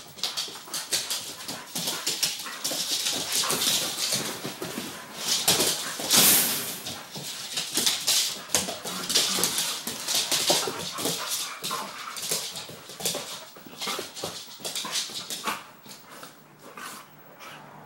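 Two dogs play-fighting, whining and yipping amid quick, scrappy bursts of scuffling noise, with the loudest burst about six seconds in.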